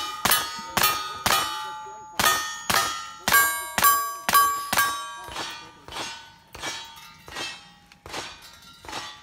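A rapid string of shots at a cowboy action shooting stage, each answered by the clang of a steel plate target being hit. About ten loud shots with bright ringing come in the first five seconds, then a run of fainter shots and rings at about one a second.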